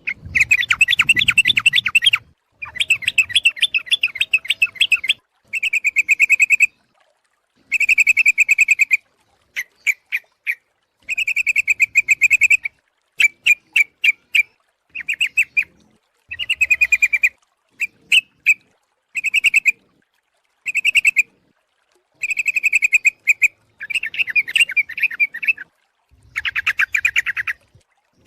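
Yellow-vented bulbul (trucuk) calling for a bird-trapping lure: loud bouts of rapid, bubbling chattering notes, each a second or two long, with short silent gaps between them and some bursts of only a few quick notes.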